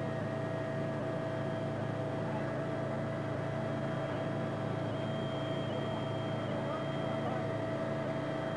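Steady engine drone, with a constant whining tone over a lower hum that holds level throughout.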